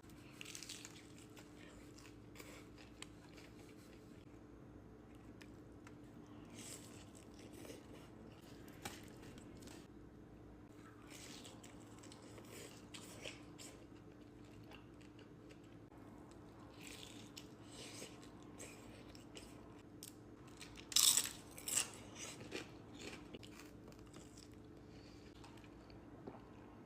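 Close-miked eating of birria tacos: irregular crunchy bites and chewing of the crisped tortillas, with two loud crunches about three-quarters of the way through. A faint steady hum runs underneath.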